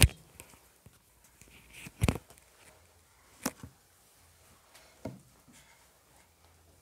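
A quiet room with a few separate soft thumps and knocks: the loudest about two seconds in, a quick pair about three and a half seconds in, and another near five seconds. They come from people shifting about and handling the lectern.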